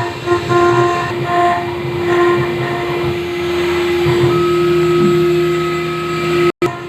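CNC router engraving granite: the spindle runs steadily with a hum and a whine, and the motors driving the axes add tones that start, stop and shift pitch as the machine moves, one new pair coming in about four seconds in. The sound drops out completely for a moment just before the end.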